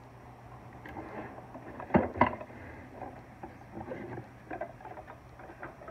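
A wooden chisel tray being lifted out of a wooden Japanese toolbox: two sharp wooden knocks about two seconds in, then lighter clicking and rattling as the tray and the chisels in it shift.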